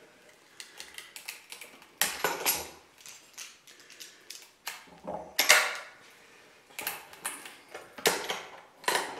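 Plywood clamp creaking and cracking under heavy load as its screw is forced round with locking pliers, in irregular groups of sharp clicks and short crackles.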